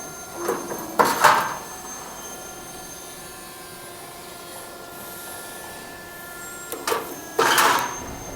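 Punching station of a garage support angle roll forming machine firing twice, about six seconds apart: each stroke is a short click followed by a louder half-second clatter as the punch goes through the formed steel angle. Between strokes the roll former runs with a steady hum and whine.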